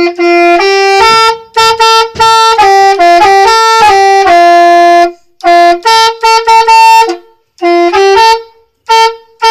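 Indonesian bus "telolet" horn, a set of multi-tone musical air horns, playing a quick tune of stepped notes with two or three tones sounding together. It plays in loud phrases broken by short gaps, about five, seven and eight and a half seconds in.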